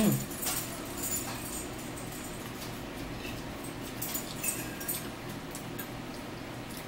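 Quiet table eating sounds: a fork tapping and scraping on a plate and small clicks and crinkles of food being handled, over a low steady room hum. It opens with a brief sharp sound carrying a short rising whine.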